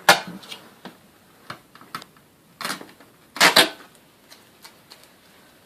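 Hard plastic clacks and knocks from handling a canister vacuum cleaner and its hose: a sharp click at the start, another near the middle, and a louder double clack about three and a half seconds in, with quiet between.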